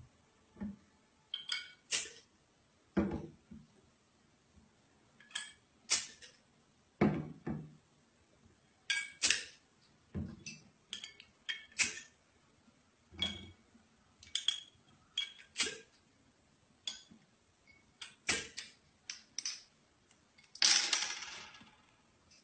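Irregular clinks and knocks of hard objects handled on a surface, roughly one every second or two, several leaving a brief ringing tone, with a louder short hiss about twenty seconds in.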